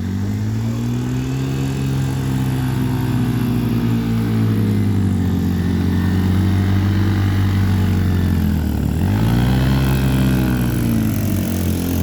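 Motorcycle engine straining up a steep climb, its revs rising, then slowly sagging, dropping sharply about nine seconds in and picking up again.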